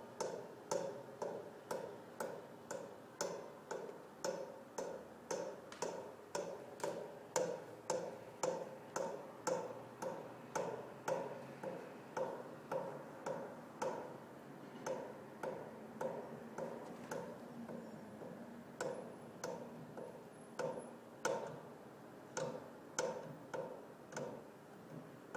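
A pipe banging: sharp knocks, each with a brief ringing tone, in a steady rhythm of about two to three a second, becoming sparser and uneven after about fourteen seconds.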